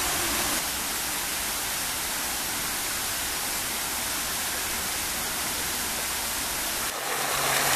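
Steady hiss of fountain jets splashing into a basin, swelling louder near the end.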